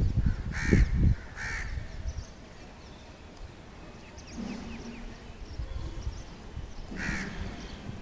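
Three short, harsh, cawing bird calls: two close together about a second in and one near the end, over a low rumble in the first second.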